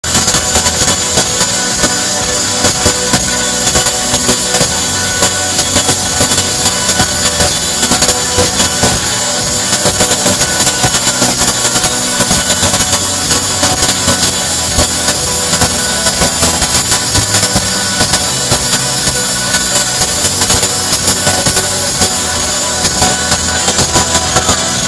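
Live rock band playing loudly, with drums keeping a steady beat and guitars, heard from within the audience.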